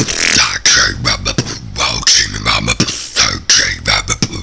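Solo vocal beatboxing: a rough, low snore bass held under quick clicking snare strokes and hi-hat hisses.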